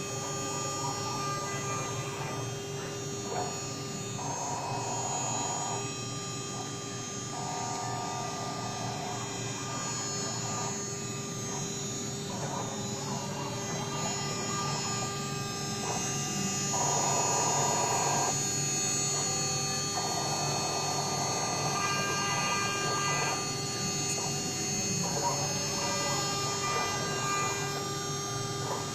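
CNC router running with a steady whine of several high tones. A buzzing note comes and goes over it in stretches of one to two seconds.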